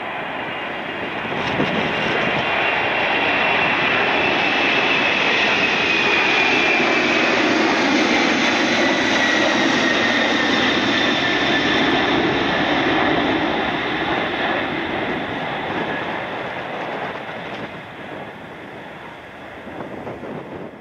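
Boeing 747-400 freighter climbing out after takeoff: a loud, steady jet-engine roar with a high whine that slides down in pitch as the aircraft passes, fading away over the last several seconds.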